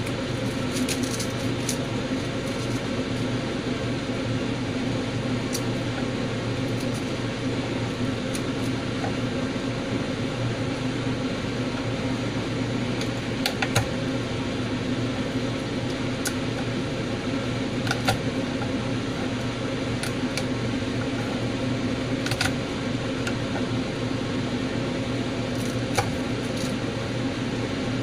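Steady low machine hum, like a running kitchen fan or appliance, with scattered light clicks and taps of garlic cloves being broken from the bulb and handled on a wooden cutting board.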